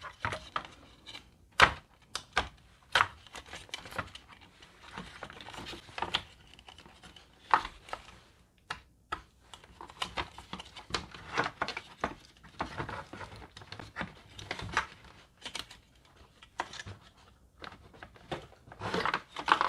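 Parts of a disassembled Honda CR-V folding side mirror being handled and worked loose to free its motor: irregular clicks, taps and short scrapes of small hard parts knocking together.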